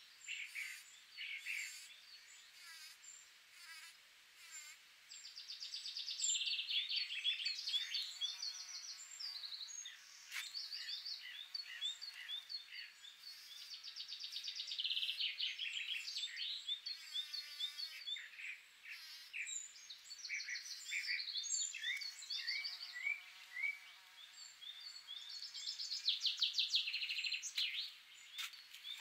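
Songbirds singing over one another: short high chirps and repeated notes, with rapid trills that are loudest about six, fifteen and twenty-six seconds in.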